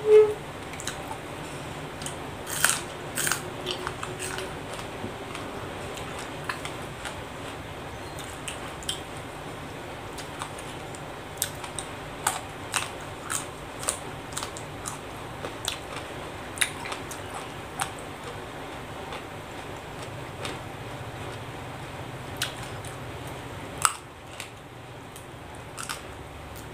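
Close-up biting and chewing of crisp raw vegetables, with irregular short crunches throughout over a steady low hum. A brief sharp sound comes right at the start.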